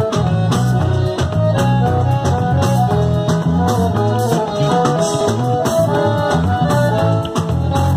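Live band playing an instrumental passage: accordion melody over electric guitar, bass guitar and drum kit, loud and steady.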